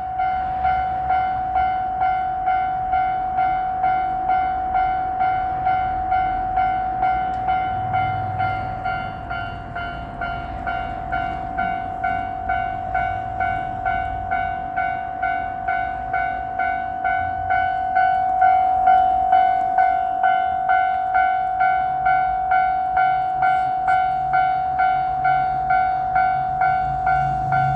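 Japanese level crossing's electronic warning bell ringing steadily at about two strikes a second. A low diesel engine rumble from the approaching JR Shikoku 1500 series railcar grows under it near the end.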